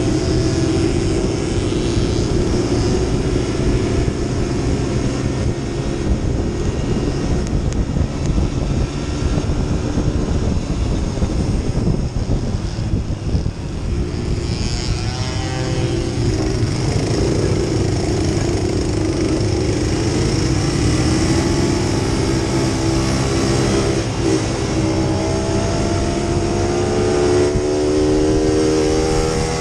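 Honda quad (ATV) engine running hard at racing pace in third gear, its pitch sagging around the middle and then climbing steadily over the last several seconds as it accelerates.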